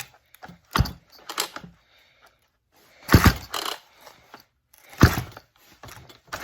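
Recoil starter cord of a McCulloch Pro Mac 610 chainsaw pulled out hard several times, each pull a short rasping burst, with the engine turning over against compression gauged by a compression tester. The saw is very hard to pull over and its starter is faulty.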